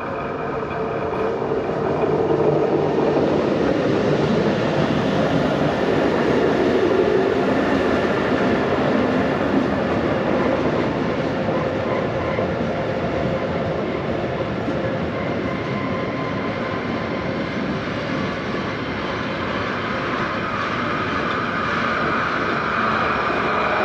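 A train running past on the rails: a loud, steady rush of wheel and running noise that swells about two seconds in and keeps going, with a thin higher whine coming in over the last few seconds.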